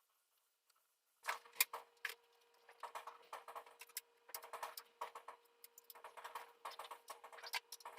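Irregular clicking and rattling, like hard plastic parts being handled and fitted together, starting about a second in, over a faint steady hum.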